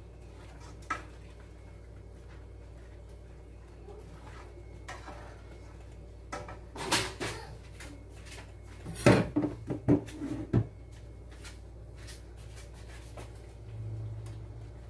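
Kitchen clatter of cookware and utensils: a single clink about a second in, a couple of knocks around seven seconds in, then a quick run of louder knocks and clatter from about nine to ten and a half seconds in.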